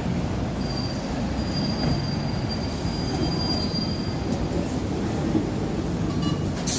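Hong Kong double-decker tram running past close by on its street rails, a steady low rumble from its wheels on the track. A thin, high wheel squeal sounds for the first few seconds.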